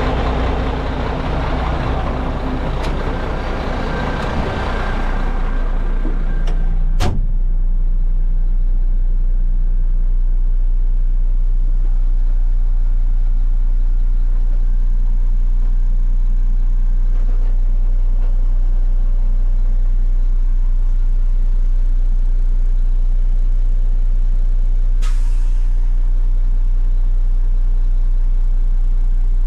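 Mack Granite truck's diesel engine idling steadily. It sounds open and noisy at first, then becomes a muffled low hum from inside the cab after a sharp knock of the cab door shutting about seven seconds in. A brief hiss comes near the end.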